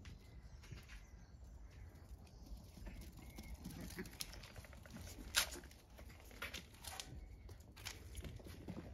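Footsteps and scampering puppy paws on stone flagstones, with scattered sharp clicks and ticks over a low rumble; the loudest click comes a little past halfway.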